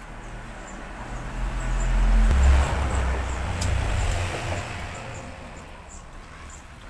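A motor vehicle passing by: a low engine hum that grows louder, is loudest about two and a half seconds in, then fades away.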